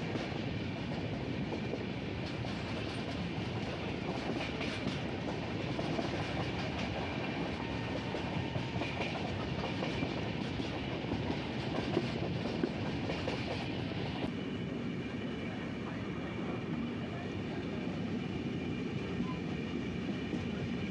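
Express passenger train running at speed, heard from a coach window: the steady rumble and rush of the coaches' wheels running on the rails. About two-thirds of the way through, the higher hiss drops away and the lower rumble carries on.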